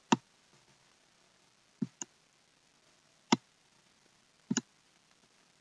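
Computer mouse clicks, short and sharp: one near the start, a quick pair about two seconds in, another past the middle and a double click near the end.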